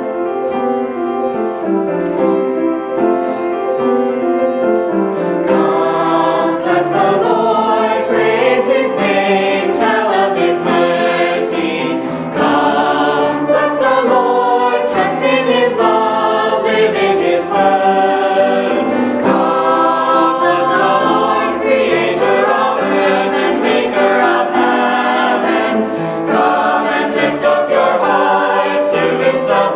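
A mixed family choir of teenage and younger boys and girls singing a hymn together. The sound grows fuller about five seconds in.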